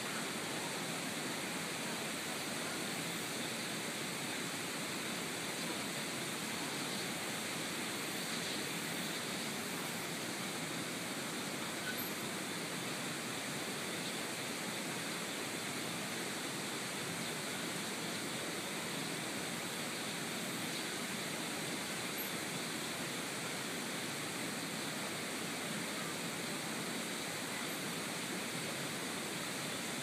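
Steady rushing of a mountain stream's water, an even wash of noise without pauses.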